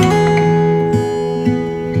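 Instrumental background music on acoustic guitar, new notes struck about once a second.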